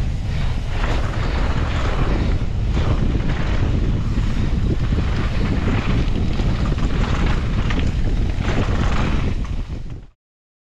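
Wind buffeting the microphone of a mountain bike rider's camera during a trail descent, with tyre rumble and repeated knocks and rattles from the bike over rough ground. The sound cuts off abruptly near the end.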